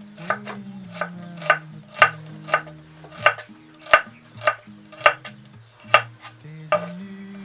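Knife chopping on a cutting board: a run of sharp knocks, roughly one every half second to second, over background music.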